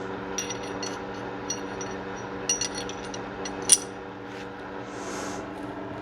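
Small metal parts of a Ruger EC9S pistol clicking and clinking as it is handled during cleaning and reassembly, with one sharper click a little past halfway, over a steady low hum.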